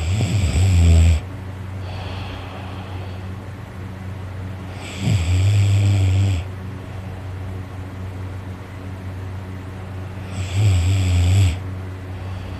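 A sleeping man snoring loudly, three snores about five seconds apart, each lasting about a second, with a softer breath out shortly after the first.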